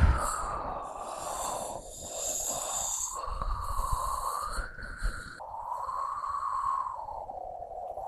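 Eerie, wind-like howling sound effect starting abruptly: a hollow tone that slowly rises and falls over a low rumble.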